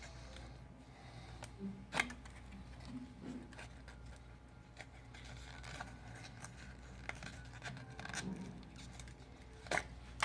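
A business card scraping and rustling as it is worked back and forth under a phone's display, cutting through the screen adhesive, with a few sharp clicks, the loudest about two seconds in and near the end.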